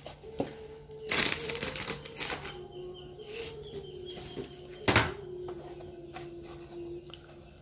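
Dry breadcrumbs rustling and scraping in a plastic tub as battered nuggets are shaken and tossed in them, in several short rustles, the loudest about five seconds in.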